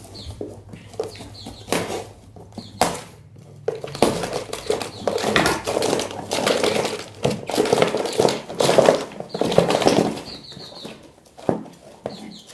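Small caged songbirds fluttering their wings and scrabbling against their container, with knocks and rustling that are loudest and densest in the middle. A short series of high chirps comes about ten seconds in.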